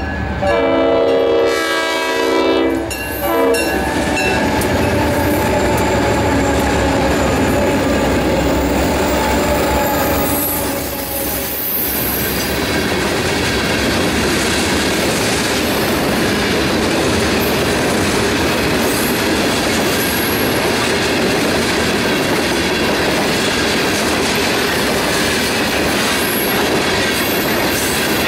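A locomotive horn sounds as the freight train reaches the crossing and stops about three seconds in. After that, the locomotive and a long string of tank cars roll past close by, with steady wheel noise, clacking over the rail joints and high wheel squeal at times.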